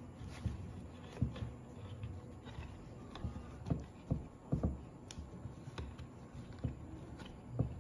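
Hands weaving T-shirt yarn strips on a wooden nail-frame loom: fabric rubbing and soft knocks against the frame at irregular moments.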